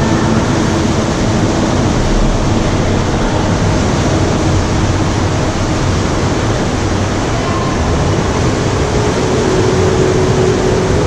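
Sea surf washing through a sea cave: a loud, steady rush of water echoing off the rock.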